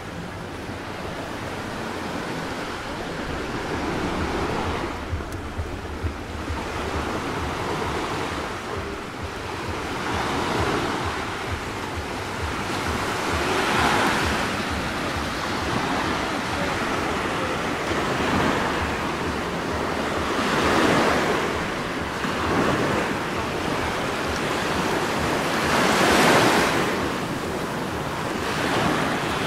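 Sea waves washing onto the shore, swelling and falling back every few seconds, with wind buffeting the microphone in a low rumble.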